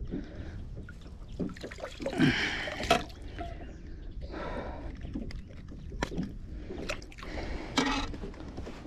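Irregular splashing and dripping water as a just-hooked fish is landed, with a few short sharp knocks.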